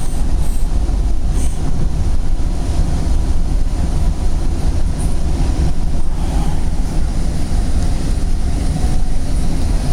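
Northstar commuter train running along the track, heard from inside the passenger coach: a steady low rumble.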